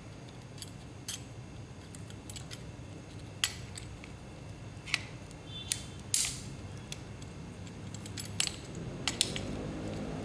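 Scattered clicks, ticks and a few sharper knocks of small fittings and parts being handled and fitted together by hand, over a faint steady low hum.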